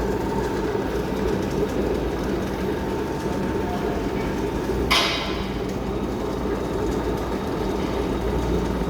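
Metal lathe running while cutting a coarse 4 TPI thread: a steady mechanical rumble from the gears and feed. A single sharp clank, with a brief ringing tail, comes about five seconds in.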